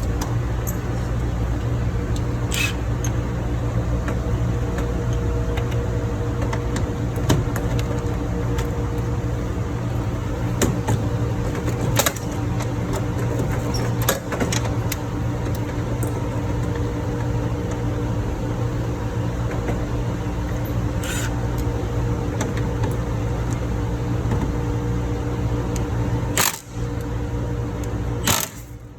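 Steady drone of running ship's engine-room machinery, with scattered sharp clicks and knocks over it. The drone drops away sharply right at the end.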